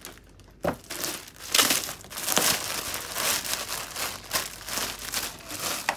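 Plastic wrapping crinkling in irregular bursts as a packed suit is handled and lifted out of its cardboard box, with a sharp knock near the start.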